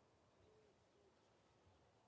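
Near silence, with two faint, short, low hooting calls in the background, about half a second and a second in.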